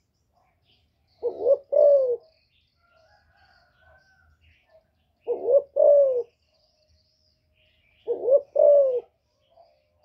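Female spotted dove cooing: three two-note calls a few seconds apart, each a short coo followed by a longer one that falls away. Faint chirps of small birds sound between them.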